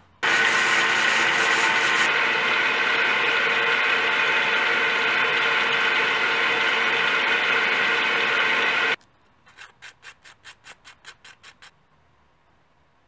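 Small belt sander running steadily, its abrasive belt grinding the end of a turned wooden knob, cutting off abruptly about nine seconds in. Then a quick run of about a dozen short, soft rubbing strokes, about five a second.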